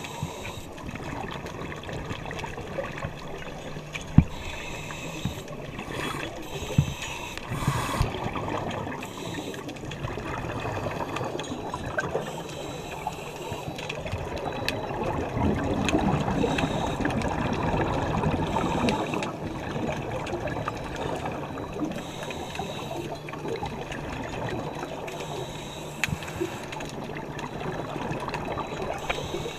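Muffled underwater noise heard through a camera's waterproof housing, with a swell of scuba exhaust bubbles for a few seconds around the middle and a few sharp clicks.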